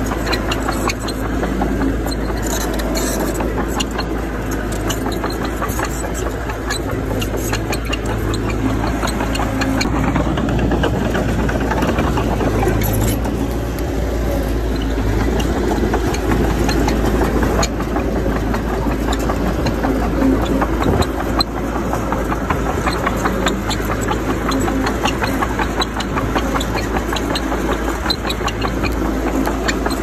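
Bulldozer's diesel engine running steadily under work, with many small clicks and knocks through it.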